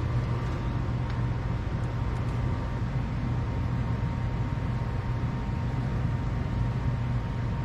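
Steady low hum with a faint high whine, unchanging throughout.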